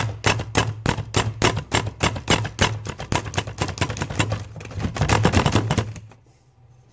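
Manual push-down food chopper worked by hand: its plunger knob is slapped down in a fast, even run of clattering strokes, about four or five a second, as the blades chop the food fine. The strokes stop about six seconds in.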